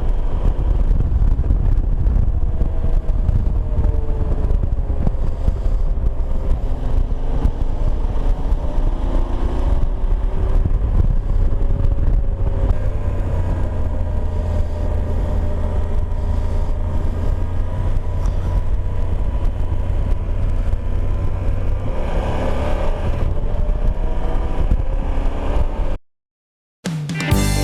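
Yamaha Super Ténéré's parallel-twin engine running under way, heavy wind rush over the microphone, with the engine pitch rising and falling as the bike speeds up and slows through the road's bends. The sound cuts out about 26 seconds in, and music begins just before the end.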